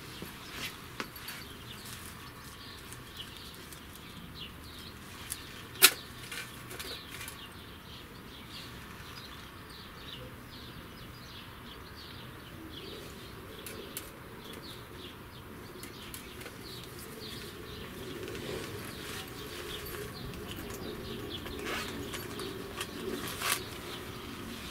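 Hands handling and crumpling dry tinder: light rustling and crackling, with one sharp knock about six seconds in.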